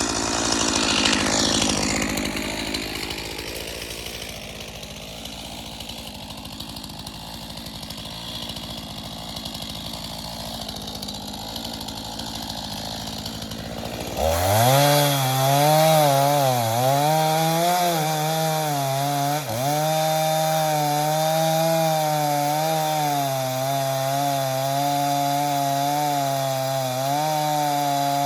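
Gas chainsaw running as it cuts a dead pine. About halfway through it settles into a loud, steady engine note that dips in pitch several times as the chain bogs in the cut.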